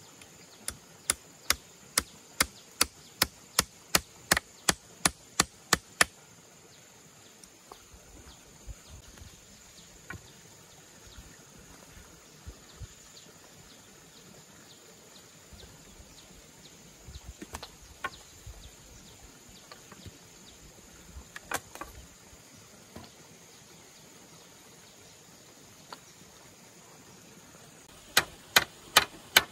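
Hammer nailing thin wooden poles together: a quick run of about fifteen sharp blows, roughly three a second, that stops about six seconds in. Then scattered soft knocks and clatter as poles are laid out, and the hammering starts again near the end. A steady high insect drone runs underneath.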